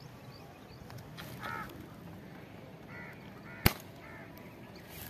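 A few short, harsh bird calls, and a single sharp snap of a slingshot shot about three and a half seconds in, the loudest sound here.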